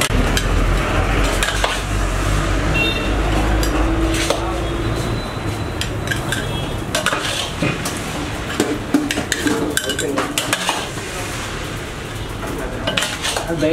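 Noodles stir-fried in a large iron wok: a metal spatula scraping and clanking against the pan again and again over a steady sizzle.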